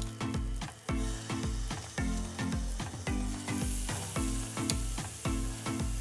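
Food sizzling as it fries in a hot pan, under background music with a steady beat.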